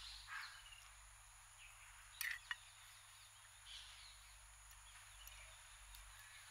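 Quiet outdoor bird ambience, with a crow cawing once as it begins and faint bird calls later. About two seconds in, a metal serving spoon clinks sharply twice against the dish as noodles are served.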